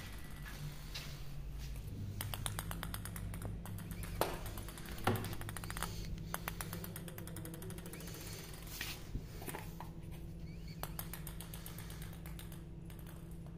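A small ball clicking and rattling across a hard floor as a cat bats it, in runs of rapid clicks with two sharper knocks about four and five seconds in. A steady low hum runs underneath.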